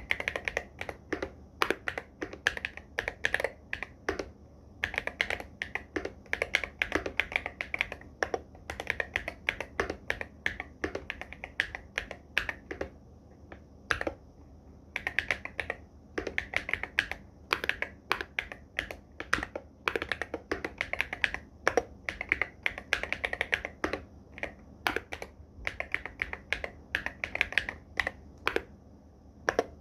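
Fast typing on an Irok MG75 Pro mechanical keyboard with Silver Purple Star switches and Loga x Wongnai keycaps: a rapid, continuous run of keystroke clacks in bursts, broken by a few brief pauses.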